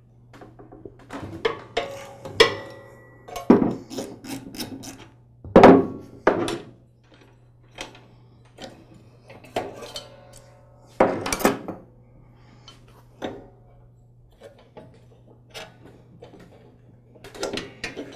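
Irregular metallic clanks, clicks and knocks of a socket wrench and channel-lock pliers working the nut off a garden tiller's transmission pulley, a few with a brief ringing tone. The loudest knocks come about six and eleven seconds in.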